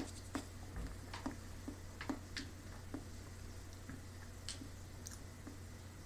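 Small clicks and ticks from a cap being twisted onto a hot sauce bottle, a quick run of them in the first three seconds and two more near the end, over a low steady hum.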